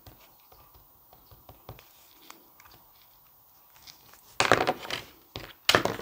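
Paper craft pieces and a glue pen being handled on a cutting mat: a few faint small taps, then two short loud scuffs about four and a half and six seconds in.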